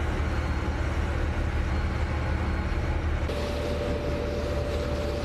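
Steady low rumble of a warship's machinery under way, with a faint steady hum over it. A little over three seconds in, the hum jumps abruptly to a higher pitch and more hiss comes in.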